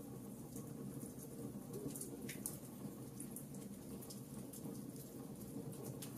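Wood fire burning in a fireplace: a steady low rush of flames with scattered sharp crackles and pops from the burning logs.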